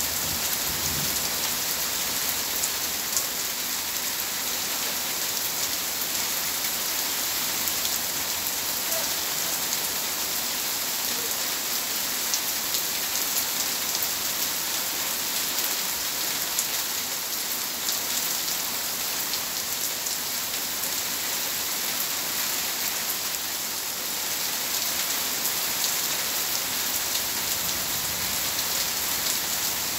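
Heavy rain falling steadily on paving and garden plants: a dense, even hiss thick with the ticks of individual drops.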